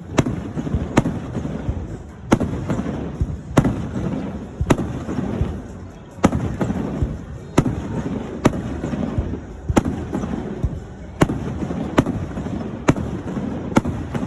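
Aerial fireworks bursting: a sharp bang about every second, with a low rumble and echo rolling on between the bangs.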